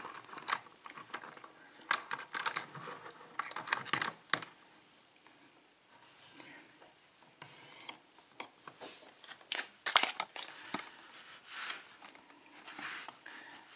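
Small metallic clicks, knocks and scrapes of a brass Kwikset lock cylinder being handled and clamped into a small bench vise, metal against the vise's metal jaws. The clicks come in irregular clusters, busiest in the first few seconds and again near the end.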